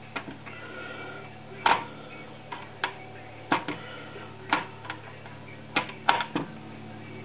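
Scattered sharp clicks and taps as a T-handle screwdriver works screws into a plastic dome-light housing and hands handle the plastic parts, about ten in all at an uneven pace.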